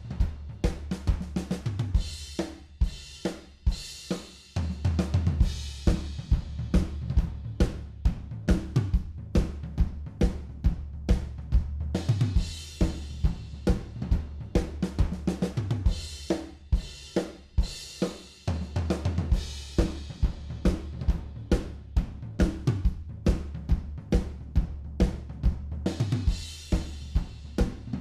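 Recorded live drum kit playing a steady groove of kick, snare, hi-hat and cymbals over a held, stepping bass line, a drums-and-bass mix being run through studio compression.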